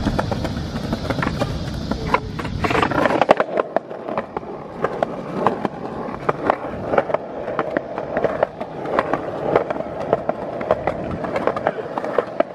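Skateboard wheels rolling on a concrete sidewalk, with one rider pushing and towing a second rider on another board. A steady rolling rumble for the first three seconds or so gives way to a run of irregular clicks and knocks.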